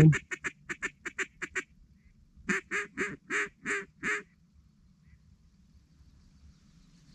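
Duck call blown by a hunter at ducks turning in toward the decoys. It gives a fast run of about eight short quacks, then after a pause six slower, longer quacks, and then stops.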